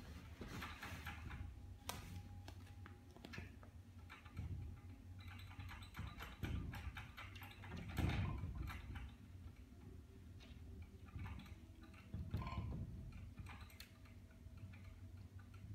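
Light scraping and scattered clicks as a cat drags a doormat across a tiled floor and through the gap of a sliding glass door, with a louder scrape about halfway through.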